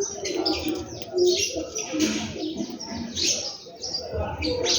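Many small birds chirping busily and overlapping, in thick runs of chirps, with lower cooing calls underneath.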